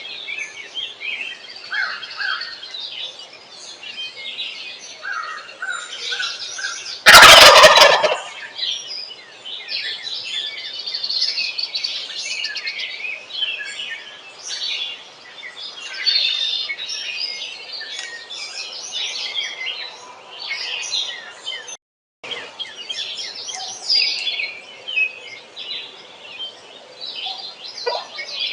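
A wild turkey gobbler gobbles once, loud and about a second long, a few seconds in, over a steady chorus of small songbirds chirping and singing. The sound cuts out for a moment about two-thirds of the way through.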